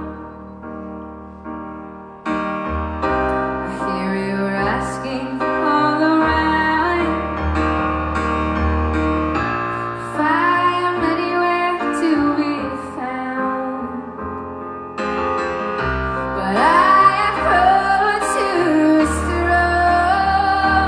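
A woman singing a slow pop ballad over piano accompaniment, live, in phrases with short breaks between them.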